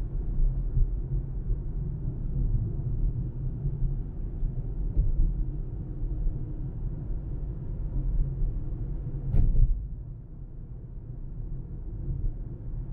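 Steady low rumble of a car driving, made of road and engine noise, with one sharp click a little over nine seconds in, after which the rumble drops slightly.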